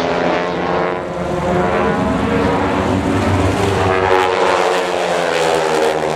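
A formation of T-6 Texan trainers, their Pratt & Whitney R-1340 nine-cylinder radial engines running hard as the formation pulls up, the layered engine tones sliding in pitch as the aircraft pass.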